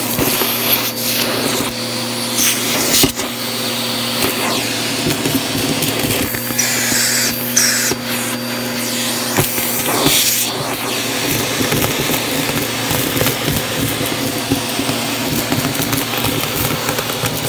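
Vacuum cleaner running, its attachment sucking up thick dirt and grit from carpet: a steady motor hum with constant crackling and rattling as debris is drawn in.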